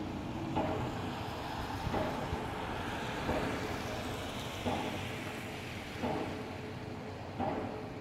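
Pile driver hammering piles: six evenly spaced bangs, about one every 1.4 seconds, each with a brief ringing tail, over a steady background rumble.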